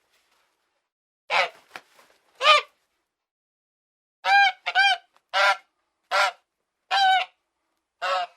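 Waterfowl calling: about eight short, separate pitched calls, spaced irregularly, with silence between them.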